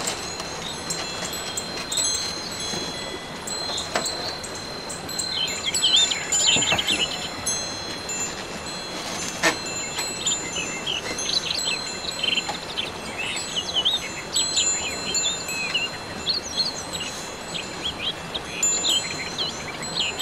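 Wind chimes ringing on and off, several high tones overlapping and fading. From about five seconds in, quick squeaky high notes come and go over them, and there is a single sharp knock about halfway through.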